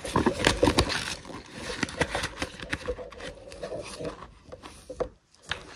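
Clear plastic binder pouch rustling and crinkling, with many small clicks and taps, as paper banknotes are slid into it.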